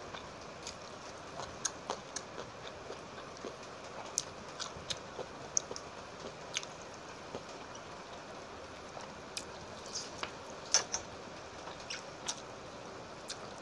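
Fingers mixing rice by hand in a steel plate: scattered sharp wet clicks and ticks over a steady hiss, the loudest about three seconds before the end.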